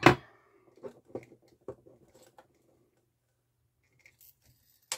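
Metal parts being handled: a sharp click at the start, a few light clicks and taps over the next couple of seconds, and another sharp click near the end, as needle-nose pliers work on the turntable motor and it is lifted from its mount.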